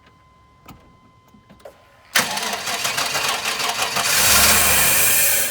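The starter of an OBS Chevy Silverado 2500 petrol engine cranks it for about three and a half seconds without the engine catching. It starts about two seconds in, gets louder partway through and cuts off suddenly. This is a crank-no-start, which the owner traced to the truck's anti-theft security system.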